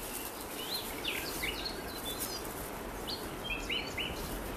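Small birds chirping in short, scattered calls, a few in quick groups about a second in and again near the end, over a steady background of forest ambience.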